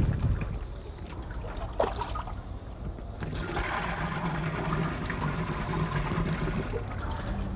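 Thick, watery slurry of powdered glaze stone, first stirred with a wooden paddle. From about three seconds in it is poured from a gourd dipper through a sieve into water, making a steady splashing pour.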